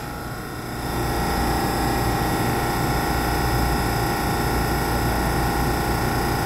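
EMU3000 electric multiple unit standing at an underground platform, its onboard equipment humming steadily: several fixed whining tones over a low rumble. The sound swells a little about a second in, then holds level.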